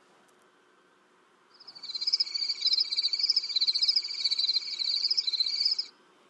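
A chorus of crickets chirping: a fast, even pulsing trill with a higher warbling chirr above it. It comes in about a second and a half in and cuts off near the end, a night-time sound effect marking nightfall.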